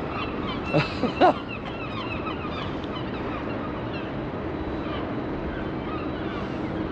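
Waterfowl calling: a few loud honking calls about a second in, then fainter bird calls over a steady background with a low steady hum.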